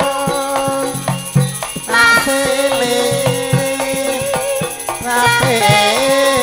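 Javanese gamelan ensemble playing, its metallophones ringing steady pitched notes over regular drum strokes, with a woman singing into a microphone over it near the end.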